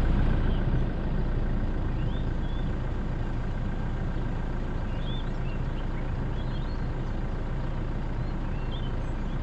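Vehicle engine running steadily at low revs, a constant low engine note, heard from the vehicle itself.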